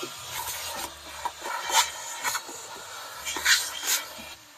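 Portable vacuum cleaner running inside a car's interior, with irregular louder rushes as the nozzle works over the floor and seats.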